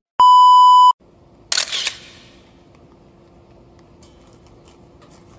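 A loud, pure electronic beep lasting under a second, cut in with dead silence on either side. About a second and a half in comes a short hissing burst that fades quickly, and then only a faint steady hum.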